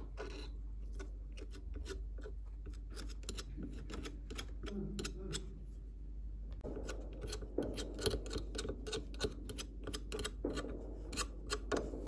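Blistered paint on a metal power-tool gear housing crackling and clicking irregularly as it lifts and is picked off with a metal pick. The clicks come thicker in the second half, over a steady low hum.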